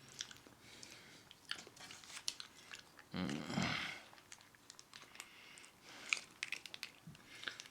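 A person chewing chicken wings close to the microphone, with many small sharp mouth clicks and one louder, fuller chewing sound about three seconds in.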